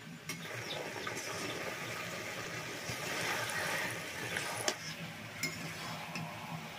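Potatoes, brinjal and Malabar spinach stems frying in oil in a steel kadai, a steady sizzling hiss as they are stirred, with a few sharp clicks of the metal spatula against the pan, two of them near the end.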